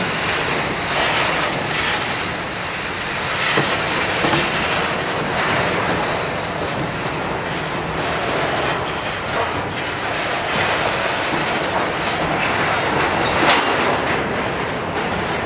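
CSX covered hopper cars of a long grain train rolling past close by, a steady rumble of steel wheels on rail with rapid clicks and clatter from the wheels and couplings, and one sharper clank near the end.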